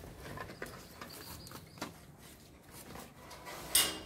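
Light clicks and taps of plastic toy kitchen pieces being handled, with one louder clatter near the end.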